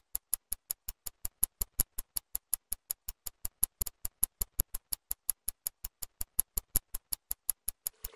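Rapid, evenly spaced sharp clicks, about five a second, steady in pace with silence between them. A rushing noise cuts in at the very end.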